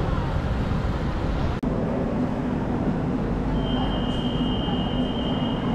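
Street traffic with a city bus running, then, after a sudden cut, the steady hum of a metro train standing at an underground platform. About halfway through, a steady high electronic tone starts and holds for about two seconds.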